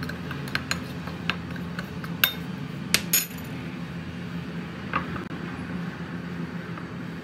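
Light clinks and taps against a glass mixing bowl as a starch, salt and black pepper mix is stirred by hand: a scatter of sharp clinks in the first three seconds and one more about five seconds in, over a steady low hum.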